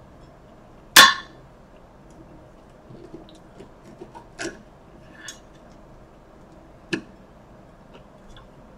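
Knife and fork clinking and scraping on a plate while cutting boneless chicken wings. A sharp clink comes about a second in, then a scatter of softer clicks and taps, with one more sharp clink near the end.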